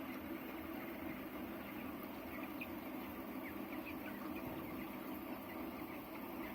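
Broiler chickens giving faint, short calls, mostly through the middle, over a steady low hum.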